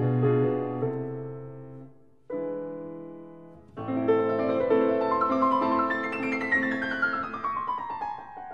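Solo piano music with sustained, decaying notes, breaking off and restarting abruptly about two seconds in and again near four seconds; toward the end a long run of notes descends in pitch.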